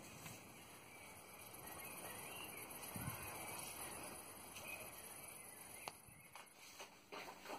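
Near silence: a faint outdoor background hiss with a few soft clicks, dropping out about six seconds in.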